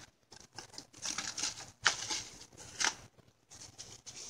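Plastic cling film crinkling and crackling as it is peeled off a glass bowl, in a series of short crackles, the sharpest about two and three seconds in.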